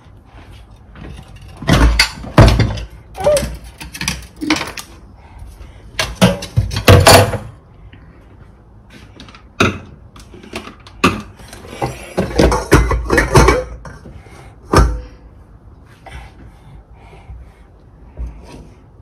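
Steel kitchen tongs clattering against a small stainless steel saucepan and knocking on a glass cooktop, in irregular bursts of clanks and knocks with quiet gaps between.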